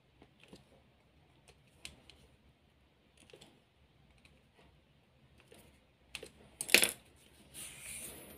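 Small clicks and taps of a screwdriver working the screw terminals of a relay board. About six and a half seconds in, a louder sharp clatter as the screwdriver is put down on the tiled floor, followed by a short rustle of wire being handled.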